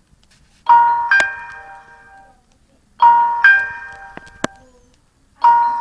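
Mobile phone ringtone for an incoming call: a doorbell-like two-note chime, a lower note then a higher one, rings three times, each dying away.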